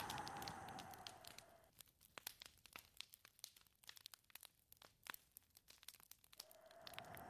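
Wind blowing with a steady whistle, dying away over the first second and a half and rising again near the end. In the lull, faint sparse crackles.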